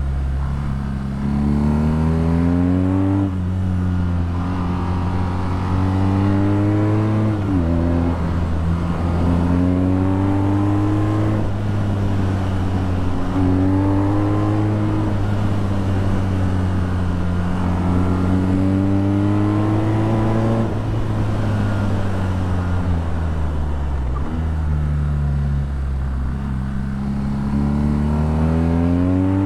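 BMW R nineT's air/oil-cooled boxer twin running through an Akrapovic exhaust under way. Its revs rise and fall several times as the throttle is opened and rolled off, dipping sharply about a quarter of the way in and again near the end.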